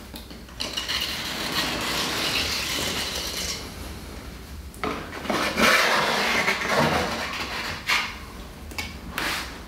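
A trowel scraping as it spreads Laticrete Hydro Ban liquid waterproofing membrane along the base of a cement backer-board shower wall. There are two long stretches of scraping, then a couple of sharp taps near the end.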